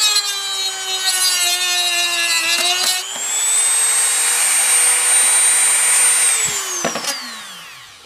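Rotary tool with a sanding drum grinding the metal tip of an electric toothbrush flat, its motor pitch dragging under the load. About three seconds in the tip is lifted off and the motor rises to a steady high whine. Then it is switched off and winds down with a falling pitch, with a couple of knocks near the end.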